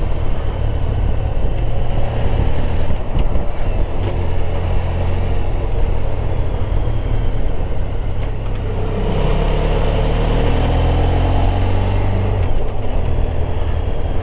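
Motorcycle engine running under way, with steady wind rush on the bike-mounted microphone; the engine note rises and then falls again about two-thirds of the way through as the bike changes speed through the bends.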